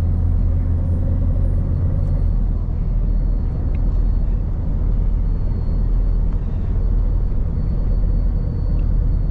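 Steady low drone of a truck's diesel engine and road noise, heard from inside the cab at motorway speed. The deepest part of the engine note eases a little about two seconds in.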